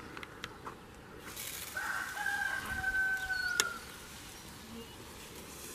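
A rooster crows once, a long held call about two seconds in. Under it, the hiss of a hand-pump garden pressure sprayer misting, ending with a click near the end of the crow.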